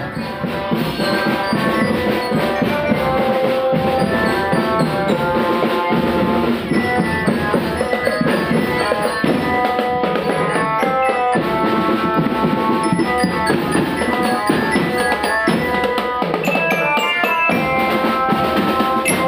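Children's marching drum band playing: a marching glockenspiel (bell lyra) carries a bright melody of short notes over snare, tenor and bass drums.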